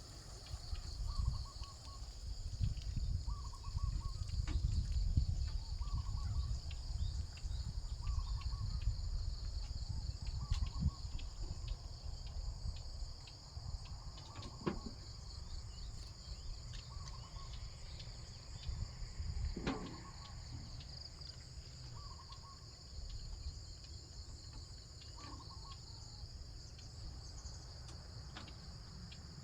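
Steady high-pitched chorus of crickets and other insects. A short call repeats every second and a half to two seconds, and a low rumble comes and goes, strongest in the first half.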